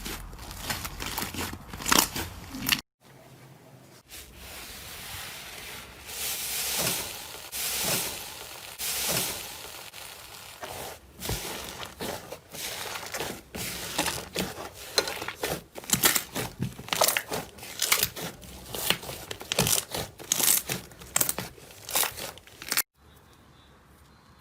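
Slime being squeezed, poked and pressed by hand, giving dense crisp crackles and pops, in a few separate takes with sharp cuts about three seconds in and near the end.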